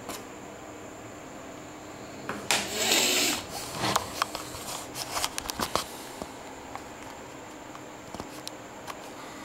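An aerosol spray-paint can hissing in one burst of about a second, followed by a run of sharp clicks and knocks for a few seconds and then a few faint ticks. A faint steady high-pitched whine runs underneath.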